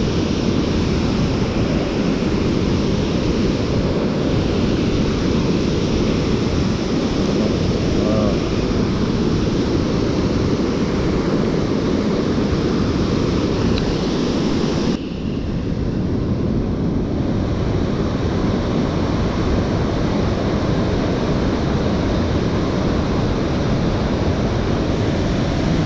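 Steady rush of a mountain stream's flowing water. Just past halfway the sound changes suddenly, with less hiss on top.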